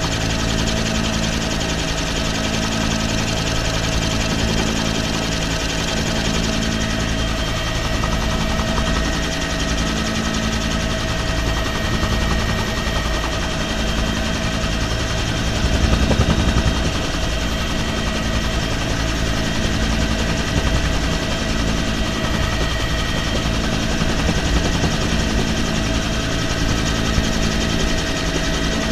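Helicopter in flight, heard from the cabin with the door open: steady turbine and rotor noise with a low hum that pulses slowly, under wind rushing over the microphone, which swells in a gust about halfway through.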